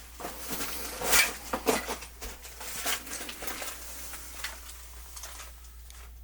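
Household clutter rustling and knocking under someone moving through it, a string of irregular small clicks and scrapes, the loudest about a second in, dying away near the end.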